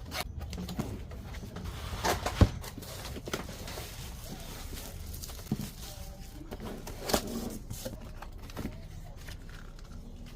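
Handling noise of packaging being opened and moved: scattered clicks and rustling, with a sharp knock about two and a half seconds in.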